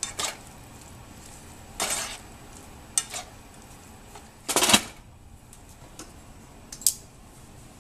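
Plastic spatula scraping and stirring ground beef in a frying pan, in a few short separate strokes. The loudest clatter comes a little past halfway, as the spatula is set down and a glass lid goes on the pan, and a sharp clink follows near the end.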